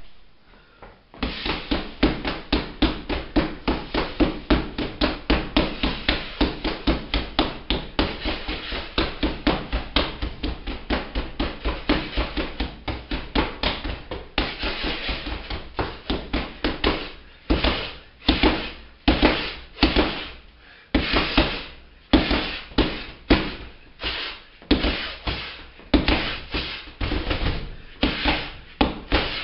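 Fists punching a large hanging strike shield in boxing combinations. From about a second in the punches come in a fast, steady flurry of roughly four or five a second. In the second half they come in shorter groups with brief pauses between them.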